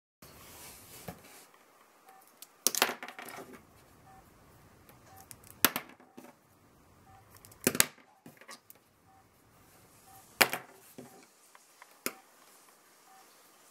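A plastic pen clicking and clattering against a hard desk surface during pen-spinning practice: about five sharp knocks a couple of seconds apart.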